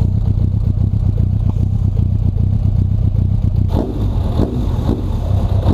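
A motor vehicle engine running with a steady low drone. About two-thirds of the way in, a rhythmic pulsing in the middle range joins it.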